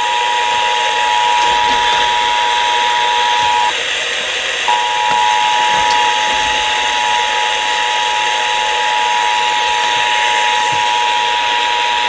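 Emergency Alert System attention signal, a steady two-tone alert received over a radio broadcast through a constant static hiss; the tone breaks off for about a second just under four seconds in, then resumes.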